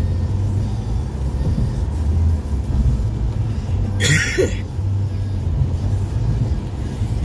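Steady low rumble of tyre and engine noise inside a car driving on a wet freeway, with a short hissing swish about four seconds in.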